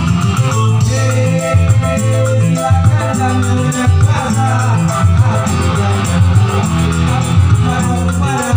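Live band music on electronic keyboard and electric bass guitar, with a steady percussion beat.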